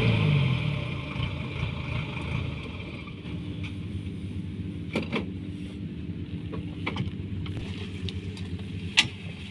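A farm machine's engine drops in pitch and level at the start, then runs on at a low steady rumble. A few sharp knocks or clicks sound over it, the loudest near the end.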